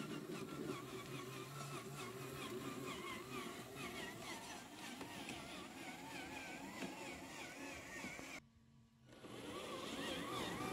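Homemade 1/8-scale RC truck's motor and drivetrain whirring as it drives, with a warbling whine over a low hum; the sound drops out briefly about eight and a half seconds in.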